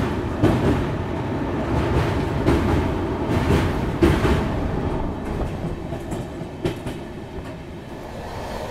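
Passenger express train running at speed: a steady rumble of wheels on the track, with a few sharp clacks over rail joints.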